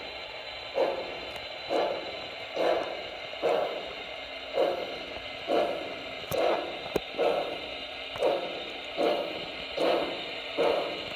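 Steam-exhaust chuffs from the onboard sound system of a Broadway Limited Paragon 2 HO-scale Pennsylvania Railroad 2-10-0 Decapod model, a slow, even beat of about one chuff a second as the locomotive crawls along. A faint steady hum runs underneath, and there is one sharp click about seven seconds in.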